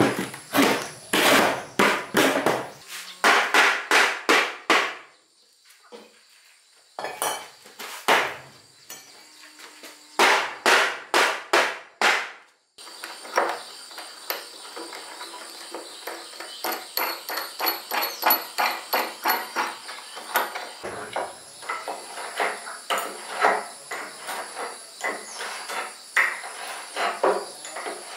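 Hammering: runs of quick, repeated strikes at about two to three blows a second, broken by a short pause partway through.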